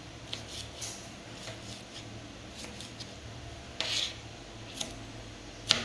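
Kitchen knife slicing tomatoes on a plastic cutting board: light, irregular taps of the blade on the board, then a longer scrape about four seconds in as the chopped pieces are pushed together by hand. A sharp knock near the end, over a steady low hum.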